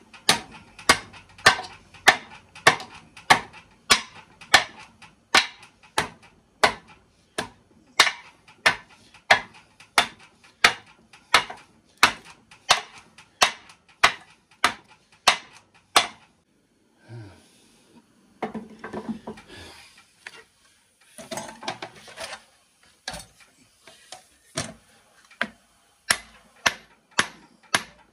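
Small hammer striking the copper windings in an electric motor's stator, about two sharp blows a second, pounding the coils out of the slots. The blows stop for several seconds past the middle, replaced by quieter rattling, then resume near the end.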